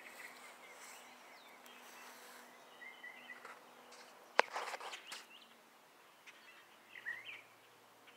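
Faint bird chirps over quiet outdoor background, a few short calls about three seconds in and again near the end. About halfway through, a single sharp click, the loudest sound, is followed by a short rustle.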